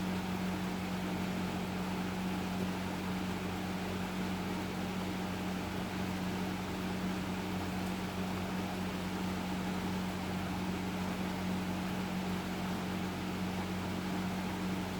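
Air Cool-made 2001 Hampton Bay Carriage House 52-inch five-blade ceiling fan running steadily: a constant low motor hum under an even rush of air.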